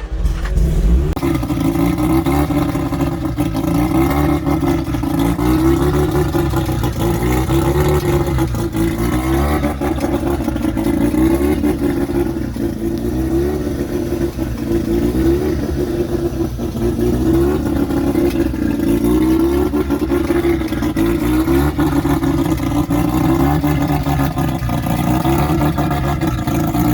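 Mazda 13B turbo rotary engine running on its first start, idling with a pitch that wavers up and down. The fuel mixture and throttle position sensor are not yet set, and it runs on base engine-management settings.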